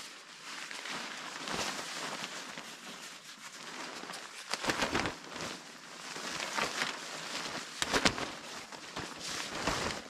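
Military poncho fabric rustling as it is unfolded and handled, with two sharper flaps, one about halfway through and one near the end, as it is shaken out.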